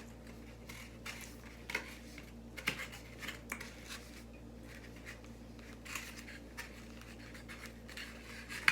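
Close-miked eating of a sloppy chili-topped loose burger and chili cheese fries: wet chewing and mouth sounds with scattered short clicks and scrapes, the sharpest click near the end, over a steady low hum.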